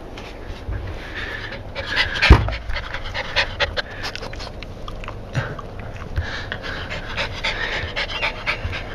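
Jack Russell terrier panting right at the microphone in a run of quick puffs, with one sharp thump a little over two seconds in.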